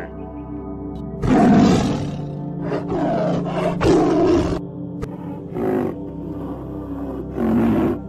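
A camel's rough groaning calls followed by a tiger's roars and growls, about five loud calls in all, over steady background music.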